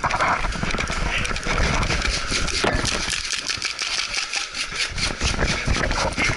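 Airsoft guns firing in rapid succession: a steady run of sharp shots, several a second.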